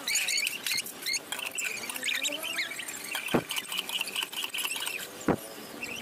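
Parakeets chirping and squeaking in short calls while water drips and patters around the cage after their bath, with two sharp knocks about three and five seconds in.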